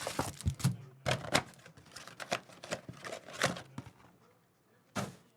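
Trading-card packaging being opened and handled: irregular crackling and clicking of plastic pack wrappers and card stock. It dies away after about four seconds, and one short crackle comes near the end.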